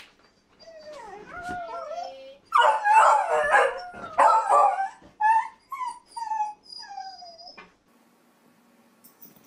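Beagle-type dog howling and baying: long calls that slide up and down, loudest a few seconds in, then a run of shorter falling calls that stop about three quarters of the way through.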